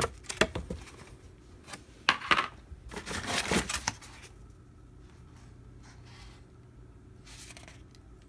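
Stiff plastic craft molds clattering and rustling against each other and the cardboard box as one is lifted out, in irregular bursts over the first four seconds or so, the loudest about three seconds in.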